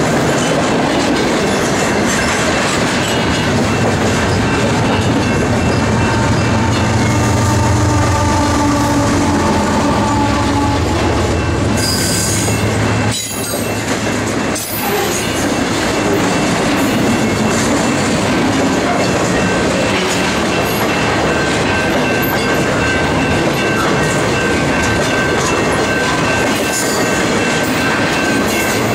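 Intermodal freight train of double-stack container and trailer spine cars rolling past close by: a steady, loud rumble and rattle of wheels over the rails. A thin, steady wheel squeal runs through the second half.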